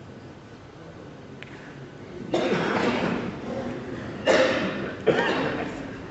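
Quiet room tone of a large hall for about two seconds, then three loud bursts of people's voices from the gathering, each starting suddenly and fading away.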